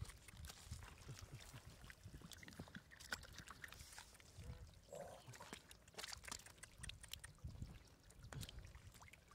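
Faint wet slopping and squelching of thick mud being scooped and pushed by hand into a plastic basket, with scattered small clicks and knocks.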